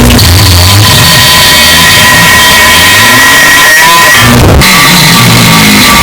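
Extremely loud, heavily distorted and clipped audio, saturated on purpose as a meme sound effect: a steady high buzz over dense noise, with a wavering low rumble and a brief noisy break about four and a half seconds in.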